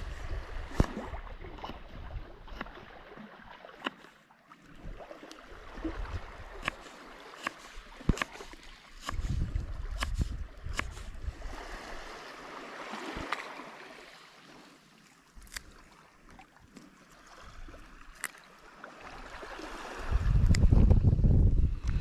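Kitchen knife slicing a white radish on a wooden cutting board: a sharp tap each time the blade goes through and meets the board, at irregular intervals. Wind rumbles on the microphone near the end.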